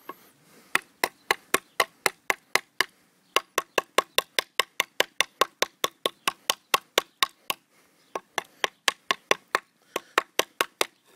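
DPx HEST Folder pocket knife chopping into a small wooden batten, the blade striking the wood in sharp knocks about four times a second. The strikes come in three runs, broken by short pauses about three and eight seconds in.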